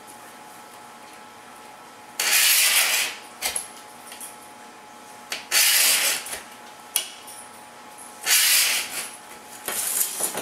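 Scoring tool drawn along an acrylic sheet: three long scraping strokes a few seconds apart, then a few shorter, quicker strokes near the end.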